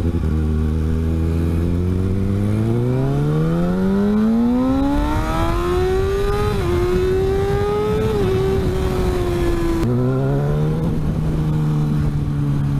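Kawasaki ZX-6R inline-four sport bike engine under way, heard on board with wind rush: the revs climb steadily for several seconds, dip slightly twice, then fall sharply about ten seconds in and settle to a steady lower note.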